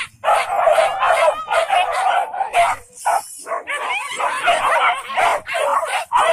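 A pack of leashed pig-hunting dogs barking and yelping excitedly, many calls overlapping in a continuous clamour with short breaks.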